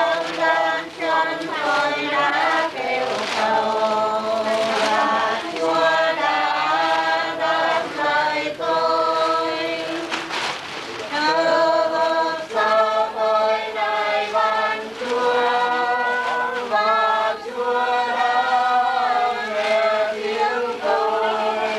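A group of voices singing a slow Catholic prayer chant together in Vietnamese, holding long notes that change every second or two.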